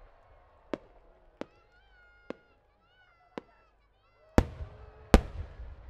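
Aerial fireworks shells: a few sharp, distant cracks, then near the end two loud booms less than a second apart as the shells burst, each followed by a long rolling echo. A faint wavering whistle sounds between the early cracks.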